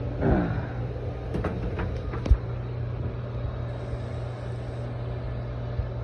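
Access panel of a Seresco dehumidifier being opened, with a few sharp clacks and knocks between one and two and a half seconds in, over a steady low hum of running machinery.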